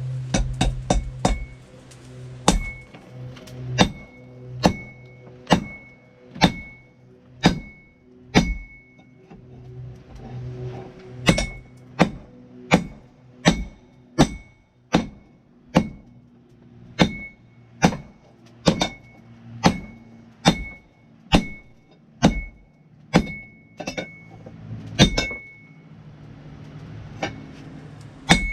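Hammer blows on steel over an anvil, about one a second in steady runs after a quick flurry of lighter taps at the start, many strikes leaving a short bright ring. The hammering stops for a couple of seconds about a third of the way through and again near the end, over a low steady hum.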